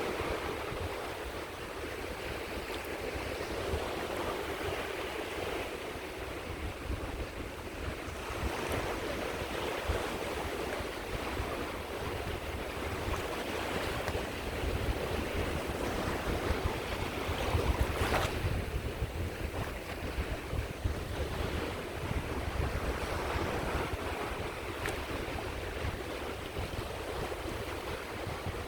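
Sea waves breaking and washing on a beach: a continuous surf that swells and eases, with wind rumbling on the microphone.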